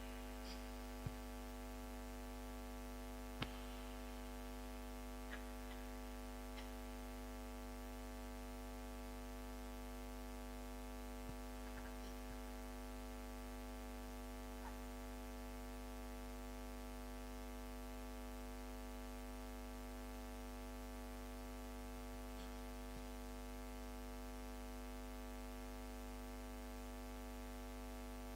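Steady electrical mains hum from an amplified sound system, with a few faint clicks in the first few seconds.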